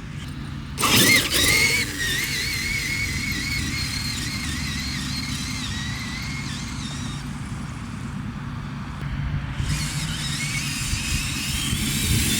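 An electric RC car's motor whining, its pitch wavering up and down as the throttle is worked while the car pulls reverse wheelies. The whine fades partway through and rises again near the end. A loud, sudden clatter comes about a second in.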